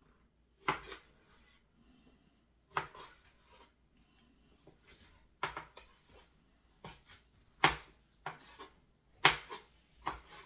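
Kitchen knife chopping on a cutting board: about eight sharp chops at uneven intervals, some followed by a lighter second tap.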